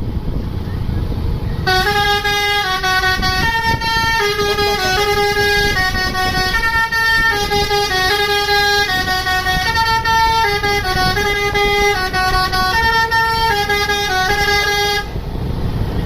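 Bus 'telolet basuri' musical horn playing a tune of short held notes that step up and down, starting about two seconds in and stopping near the end, with a low rumble underneath.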